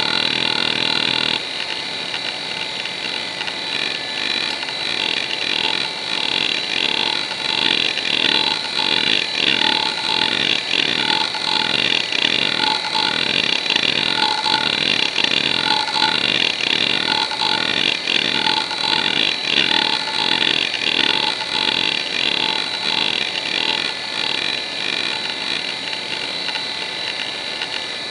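Conner CFS425A 425 MB hard drive seeking under the hdmotion test: its heads move back and forth in a rapid, rhythmic chatter of seeks over the steady hum of the spinning platter. The seeks come in a dense run for about the first second and a half, then settle into a regular repeating pattern.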